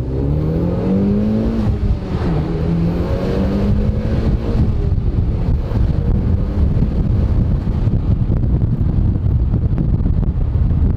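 Mitsubishi Lancer Evolution X's turbocharged 2.0-litre four-cylinder accelerating hard through a Turbo XS aftermarket exhaust, heard from inside the cabin. The engine note climbs, drops at a gear change about two seconds in, climbs again, then eases off after about five seconds into steady road and wind noise.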